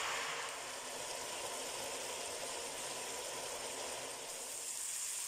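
Vegetables frying in oil in a pot, a steady sizzle.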